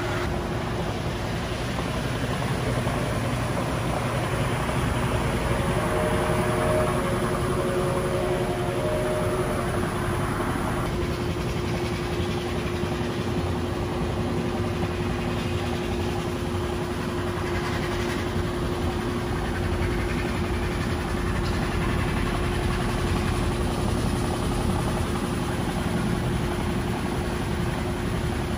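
Aqua Massage hydro massage bed running: a steady machine drone with a constant hum, as jets of water spray back and forth against the underside of its cover.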